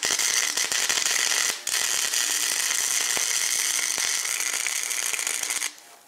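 Wire-feed (MIG) welding arc crackling steadily as a clutch pedal is re-welded. It breaks off briefly about a second and a half in, then runs on until it stops just before the end.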